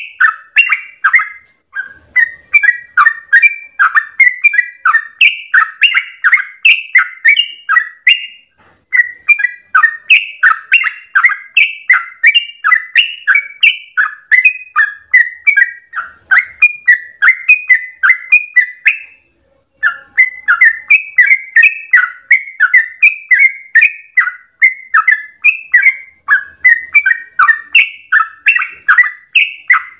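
Yellow-vented bulbul (trucukan) singing its long 'ropel' song: a fast, unbroken run of short notes, about three a second, with brief pauses about two, nine and nineteen seconds in.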